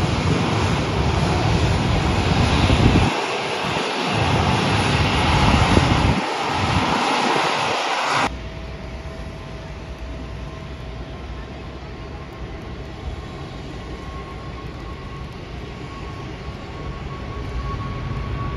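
Skymark Boeing 737's jet engines running as it taxis: a loud, steady roar with a low rumble that comes and goes. About eight seconds in the sound cuts off abruptly to a quieter, distant airfield hum with a faint steady whine.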